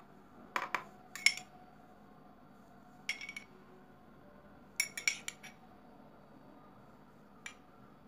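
Kitchen utensil clinking and tapping against a dish in short, irregular groups of sharp clicks, loudest about a second in and busiest around the middle.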